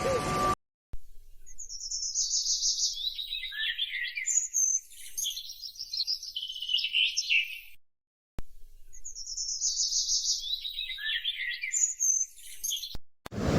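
A songbird singing a fast trilled phrase that starts high and slides down in pitch, breaking into a jumble of notes at the end. The phrase comes twice, with a short pause between.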